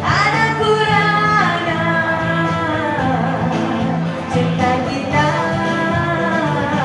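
A woman singing a Malay pop ballad into a microphone over backing music, with long held notes that step down in pitch.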